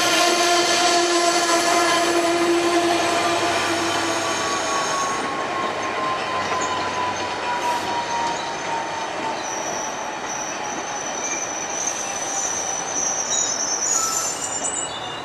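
Stainless-steel passenger coaches rolling past at the platform, with steady high-pitched wheel squeal over the rumble of the wheels. The rumble slowly fades as the last car goes by, and high thin squeals remain near the end.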